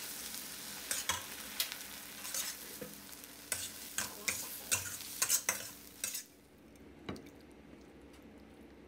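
Squid and vegetables sizzling in a wok while a metal spatula scrapes and tosses them in regular strokes, about two a second. The sizzle cuts off suddenly about six seconds in, and a single knock follows a second later.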